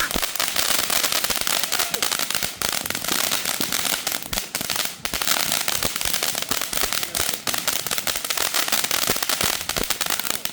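Fireworks crackling: a dense, continuous run of rapid pops and crackles with a few louder bangs among them, cutting off suddenly near the end.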